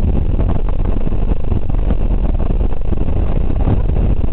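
Cabin sound of a BMW 325iX rally car driven hard on gravel: its 2.5-litre straight-six runs under load with a steady, loud drone, mixed with the rumble of tyres and gravel on the underbody.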